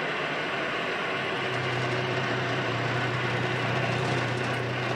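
Semi-truck's diesel engine running, heard inside the cab as a steady mechanical hum. A low steady drone joins about a second and a half in.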